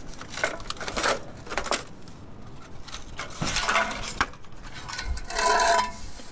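Aluminium scrap pieces clinking and knocking together as they are handled, a string of light metallic knocks, with a louder ringing clang about five and a half seconds in.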